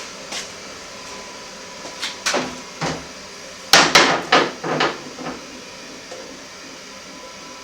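A few sharp knocks and clanks of metal tools and parts being handled and set down on a workbench, with a quick cluster of four or five hits about four seconds in.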